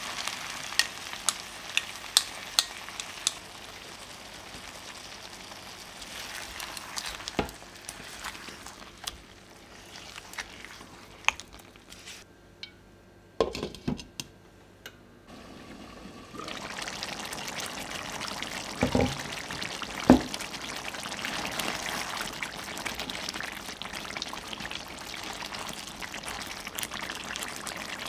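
Chicken drumsticks sizzling and crackling in a nonstick pan as yogurt is poured over them, with sharp pops in the first few seconds. Near the middle a glass lid clinks onto the pan and the sizzling goes quiet. Later the uncovered yogurt gravy simmers with a steady hiss, broken by two sharp knocks a second apart.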